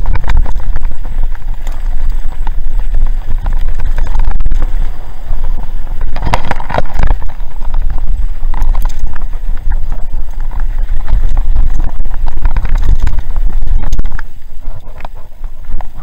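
Downhill mountain bike rolling fast over a loose gravel and rock trail: tyres crunching and rattling over stones, with heavy wind buffeting on the microphone. It eases off a little near the end as the trail turns to smoother dirt.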